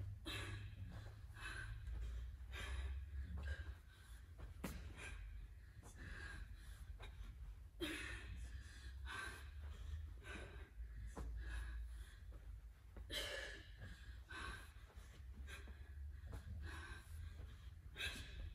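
A woman breathing hard through a set of sit-ups, exhaling sharply about once a second in time with each repetition, over a low steady hum.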